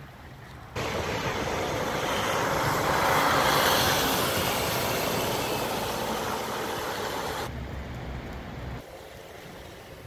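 A vehicle driving past on a snowy road: a noisy hiss of tyres and engine that starts abruptly about a second in, swells for a few seconds and fades away.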